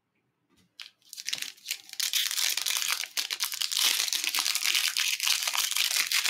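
A 2021 Absolute Football trading-card pack's wrapper being torn open and crinkled by hand, starting about a second in and crackling continuously.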